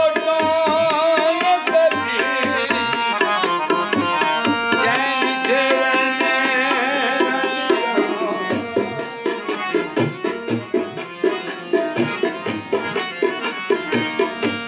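Music: a held, wavering melody over hand-drum playing, with the drum beat coming more to the fore about halfway through.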